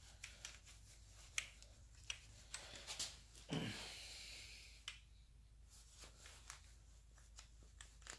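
Faint metallic clicks and taps of a torque wrench and socket being handled and fitted onto a bolt head. A brief rushing, rubbing noise falls in pitch about three and a half seconds in.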